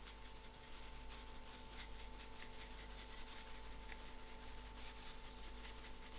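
Faint, quick rattling patter of dry spice being shaken from a cardboard shaker box onto the meat, over a steady low electrical hum.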